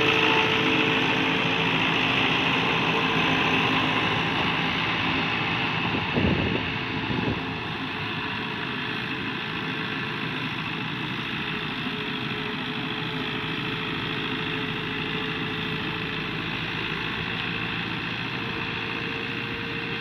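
New Holland (Fiat) 640 tractor's diesel engine running steadily while pulling a laser land-levelling blade. A single sharp knock comes about six seconds in, and the engine is a little quieter after it.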